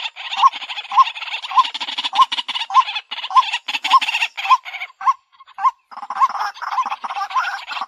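White-breasted waterhen calling over and over, a repeated harsh note about twice a second over a dense rasping chorus. There is a brief break about five seconds in, then the calls resume more thickly.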